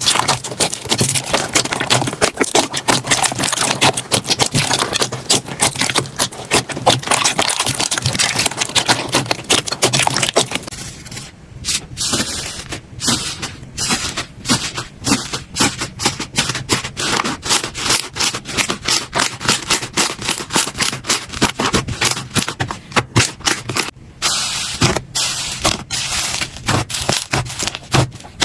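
Slime being squeezed and pressed by hands, with dense crackling and clicking. Busy for about the first ten seconds, then sparser, separate clicks.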